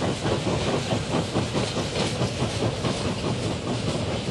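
Two QJ-class 2-10-2 steam locomotives double-heading a freight train, working along with a fast, steady beat of exhaust and the clatter of wheels on the rails.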